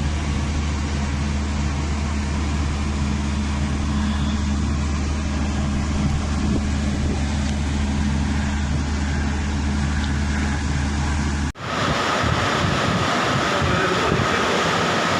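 Steady low engine hum with a rushing noise over it; about eleven and a half seconds in it cuts off abruptly and a louder, hissing rush takes over.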